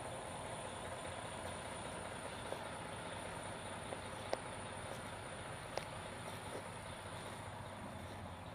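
Steady engine noise from a running vehicle, with a few faint clicks.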